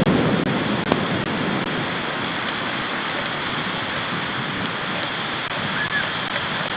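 Steady hiss of heavy thunderstorm rain, a little louder in the first second.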